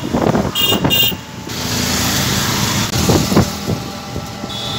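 Road and wind noise of a ride in an open-sided vehicle, with two short high-pitched horn beeps just under a second in and another brief one near the end.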